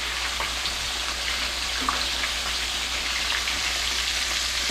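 Fish frying in hot oil in a pot: a steady sizzle with scattered small pops and crackles.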